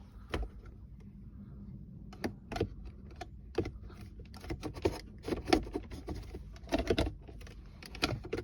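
Irregular plastic clicks and taps from a Toyota Prius V center console switch panel being handled and fitted. The clicks start about two seconds in and come in quick runs.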